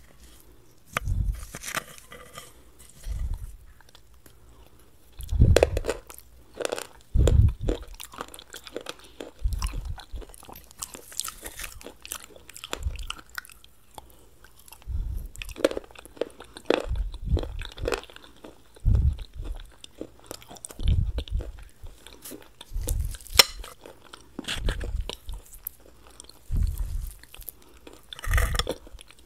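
Close-miked biting and chewing of crunchy food, crisp crunches coming in bouts about every two seconds.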